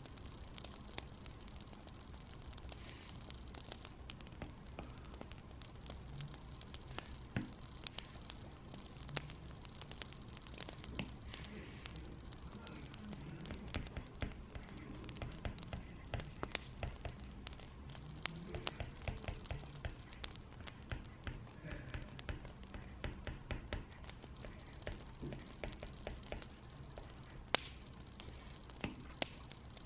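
Wood fire crackling: irregular sharp pops and snaps over a low steady rumble of burning logs.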